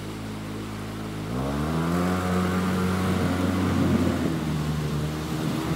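Side-by-side UTV engine running steadily, then revving up about a second and a half in and holding higher revs as the machine churns through muddy water, with splashing over the engine note.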